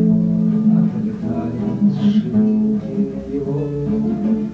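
Acoustic guitar playing an instrumental passage of a song, with sustained notes and no singing.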